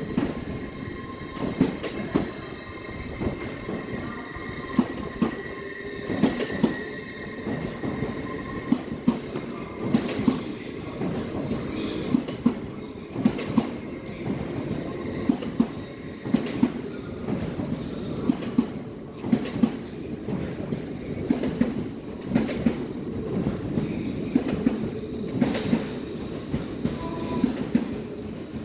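LNER Azuma multiple unit running past along the platform: a steady rumble of wheels on rail with regular sharp clicks as the wheels cross rail joints, and a high steady tone that fades out after about eight seconds.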